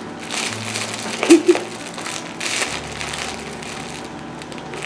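A fuzzy catnip tail toy with crinkle material inside, crinkling in irregular bursts as a cat grips, bites and kicks at it, with two short louder crackles about a second and a half in.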